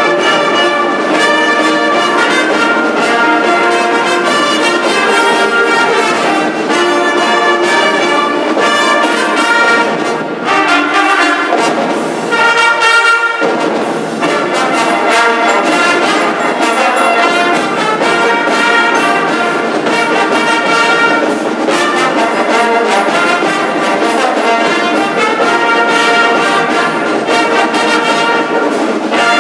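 Marching band playing a loud, brass-heavy piece, with sousaphones, trumpets and saxophones.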